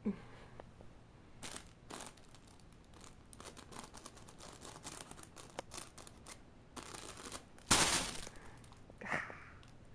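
Scattered crinkling and rustling, like paper or a crinkly toy being batted about by a pet at play, with one louder rustle near eight seconds in. A short high squeak comes about a second after it.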